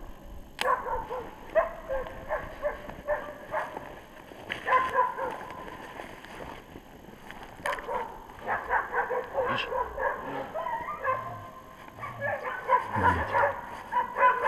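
West Siberian Laika hunting dogs barking over and over in quick runs, baying at a bear they are holding.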